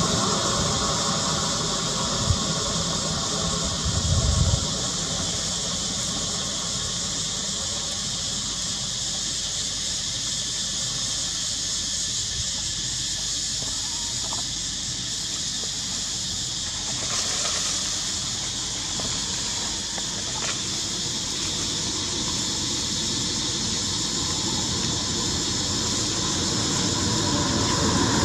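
Steady high-pitched insect drone, with two brief low thumps in the first few seconds and a low rumble growing near the end.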